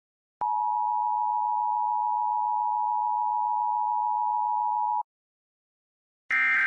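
Steady single-pitch electronic test tone of the kind that goes with a colour-bars screen, starting almost at once and cutting off sharply after about four and a half seconds. After a short silence, a louder, buzzy electronic burst of several tones begins near the end.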